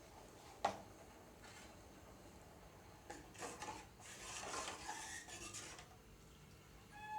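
A spoon clinks once against a kadai, then stirs and scrapes around the pan for a few seconds.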